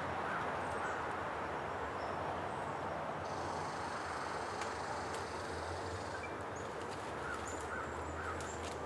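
A crow cawing over a steady outdoor rushing background: a short run of caws in the first second, and three more near the end.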